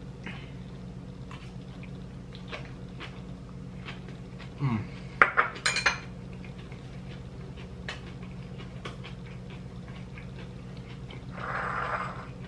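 Chopsticks clicking and scraping against a plate while eating: scattered light clinks, with a quick cluster of louder ones about five seconds in. A steady low hum runs underneath.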